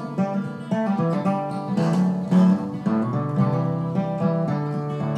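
Background music on acoustic guitar, with plucked notes changing every fraction of a second.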